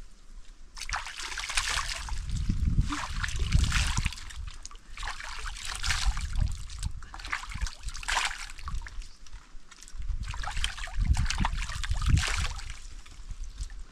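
Hands scooping water from a basin and splashing it onto the face, the water pouring back into the basin. This happens in about five bouts, each a second or more long and roughly two seconds apart.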